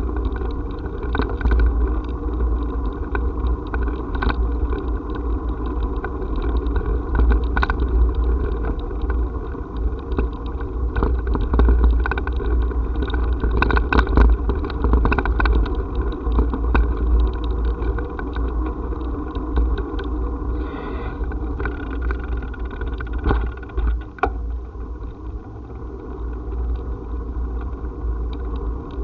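Steady low rumble of wind and vibration on a camera moving over a paving-stone path, with frequent small rattling clicks. It eases a little in the last few seconds, and there is a short high chirp about two-thirds of the way through.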